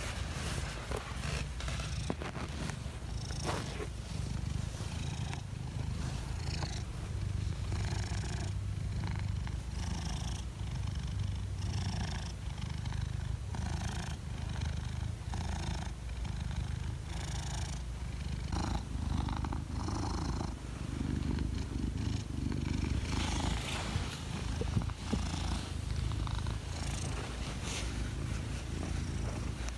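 Long-haired silver tabby cat purring steadily close to the microphone while being stroked, its low rumble swelling and easing with each breath, with intermittent soft rustling over it.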